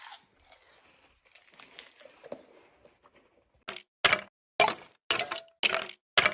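Faint rustling, then about halfway through a run of six sharp, loud hits, roughly two a second.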